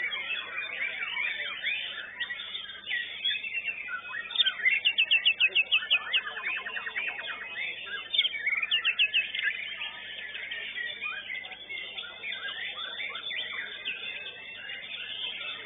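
Several white-rumped shamas (murai batu) singing at once: a dense, busy tangle of whistles and trills. Fast runs of rapidly repeated notes stand out about four to seven seconds in and again around eight seconds in.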